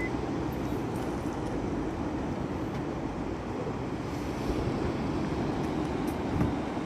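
Steady roar of large ocean waves breaking and washing in, an even rushing noise without distinct events.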